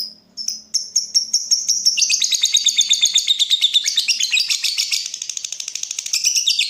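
Lovebird calling: a few separate high chirps, then from about two seconds in a long, fast run of chirps, many a second, that lasts almost to the end.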